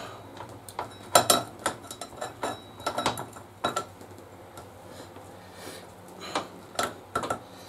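Irregular metallic clinks and knocks of motorcycle parts being handled: the rear axle and chain adjusters as the rear wheel is refitted. The loudest knock comes about a second in.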